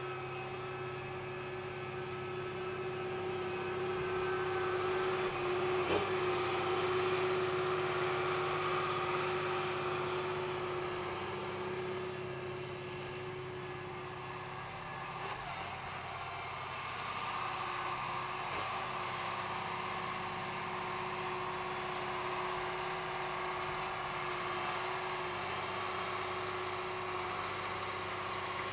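John Deere 8420 tractor's six-cylinder diesel engine running steadily with a steady whine over it, swelling a little louder for several seconds early on and then easing back. A single sharp click about six seconds in.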